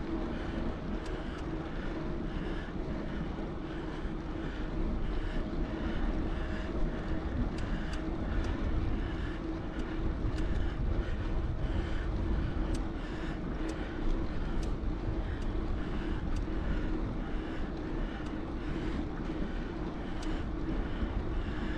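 Riding a bicycle: tyres rolling with a steady hum and scattered light ticks and rattles.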